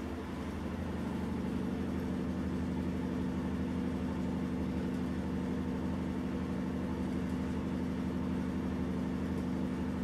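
A steady low machine hum with a constant pitch, like a motor running, with no change throughout.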